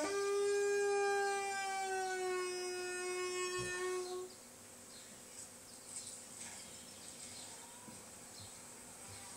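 A wolf howling on a television: one long, steady howl that falls slightly in pitch and ends about four seconds in.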